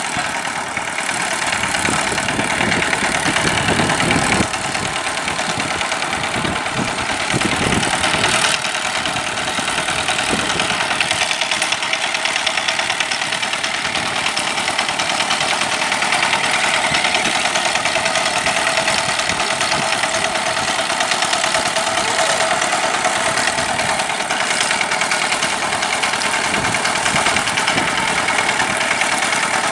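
Yanmar diesel engine of a paddy-field tractor running steadily, with a rapid even beat.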